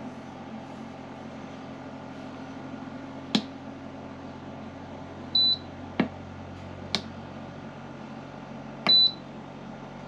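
F40C4TMP 12-volt portable refrigerator running with a steady hum while buttons on its control panel are pressed: a few sharp clicks and two short high beeps, about five and nine seconds in.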